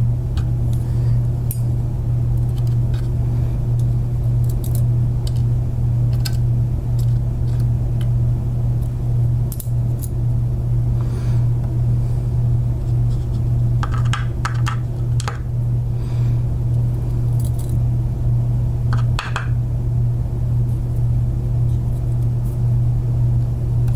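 Scattered small metal clicks and light clinks as driver pins and springs are worked out of a lock cylinder. A steady low hum runs underneath and is the loudest thing present.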